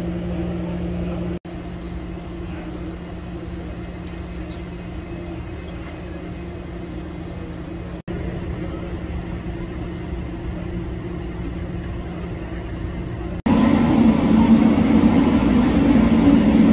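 Steady low hum of idling vehicles and machinery at a street scene, in edited pieces that cut off briefly three times. It gets clearly louder for the last few seconds, close beside a light rail car.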